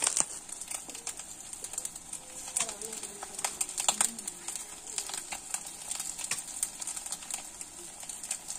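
Chicken pakoras deep-frying in a wok of hot oil: a steady sizzle with scattered sharp crackles and pops.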